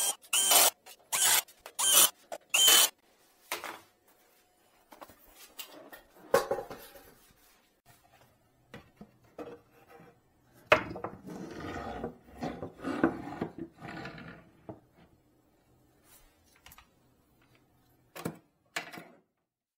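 Cordless drill-driver run in four short whining bursts on the screws of a bar stool's seat mount. Then a wooden shelf board is handled, with a thump, a few knocks and a stretch of rubbing and clattering wood. Two sharp knocks come near the end.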